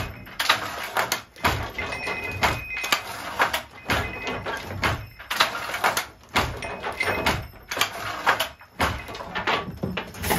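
18th-century wooden handloom with a Jacquard machine weaving linen damask: repeated wooden clacks and knocks, about one a second, as the batten swings and the harness shifts, with sliding and rattling between the strokes.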